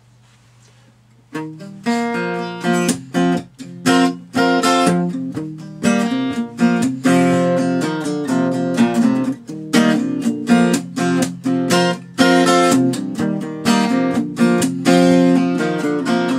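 Acoustic guitar strummed in a steady rhythm, the instrumental intro of a song, starting about a second and a half in.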